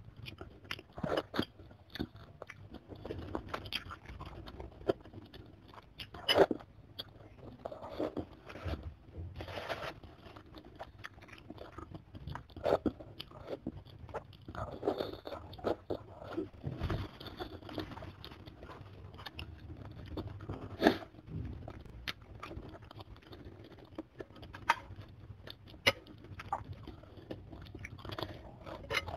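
Close-miked eating: a chicken foot being bitten, sucked and chewed, with wet mouth sounds and irregular crunches of cartilage. Two louder sharp cracks stand out, about six seconds in and again around twenty-one seconds.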